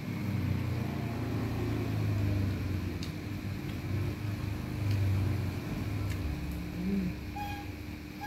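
Low, fluctuating rumble of a motor vehicle engine running, over a steady faint hum, with a few faint clicks.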